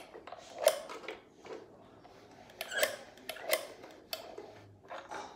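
Plastic toy stuffing machine being turned by hand, its mechanism giving about five irregular plastic clicks and rattles as the fluff is fed into the bear.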